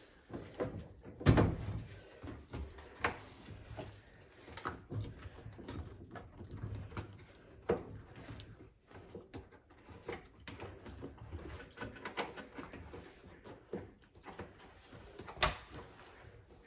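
Irregular knocks, clicks and handling noises of hands and tools working on a washing machine during a door-seal replacement. A sharp knock about a second in is the loudest, and another comes near the end.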